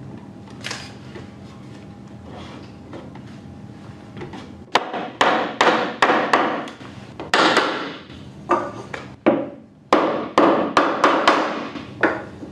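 Hammer blows on wooden timbers, knocking the pieces of a timber frame down into their joints: light handling for the first few seconds, then about a dozen sharp strikes at roughly two a second from about five seconds in.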